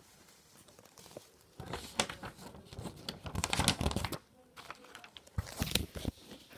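Sheets of paper rustling and crinkling as they are handled and moved, in irregular bursts: a longer stretch from about a second and a half in, then a shorter one near the end.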